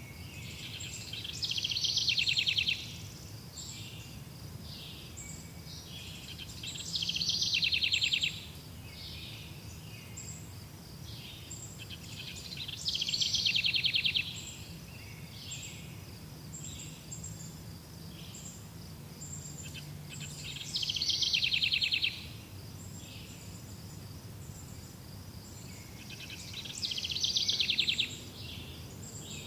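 Outdoor nature ambience: small birds chirping over a steady low rumble. A louder, rapid trilling call of a bird or insect comes five times, each lasting under two seconds, about every six seconds.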